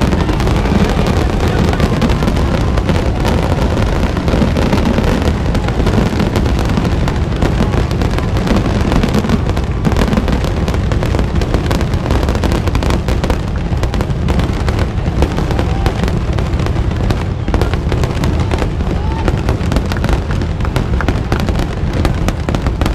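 Fireworks going off in quick succession: a dense, continuous barrage of bangs and crackle with no pause.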